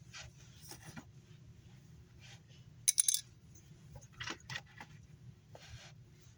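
Small hard objects clicking and clinking as they are handled on a work surface, with a bright, loud cluster of metallic clinks about three seconds in.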